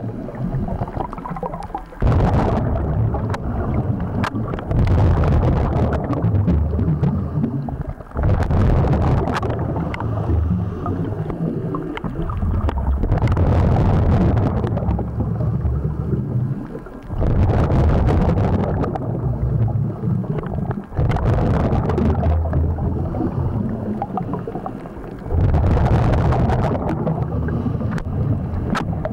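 Scuba diver breathing through a regulator: rumbling bursts of exhaled bubbles come in a steady rhythm roughly every three to four seconds, with short dips between breaths.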